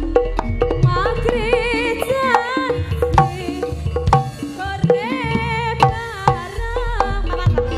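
A female pesinden singing through the PA with a wavering vibrato, over Javanese jaranan accompaniment with sharp kendang hand-drum strokes.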